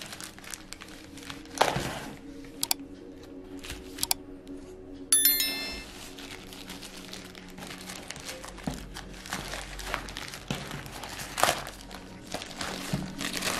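Plastic courier mailer bag crinkling and rustling as it is pulled and torn open by hand, in irregular bursts. Soft background music plays under it, and a short chime-like sound effect rings about five seconds in.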